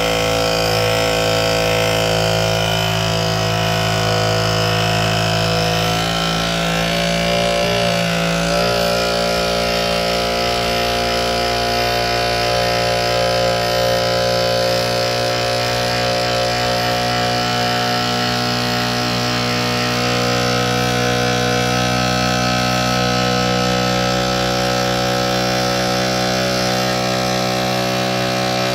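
Hydraulic tilt-cab pump of a 1992 Isuzu Elf running steadily as it raises the cab: a loud, even hum whose pitch wavers briefly about six to eight seconds in.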